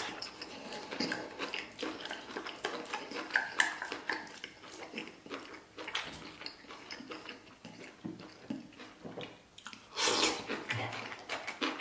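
Close-miked chewing and wet mouth noises of a man eating with chopsticks, full of small clicks and smacks. About ten seconds in, a louder slurp as he takes another mouthful.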